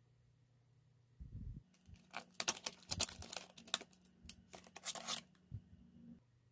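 Crinkling and tearing of small cardboard makeup packaging: a soft low thump about a second in, then about three seconds of dense, irregular crackling and rustling.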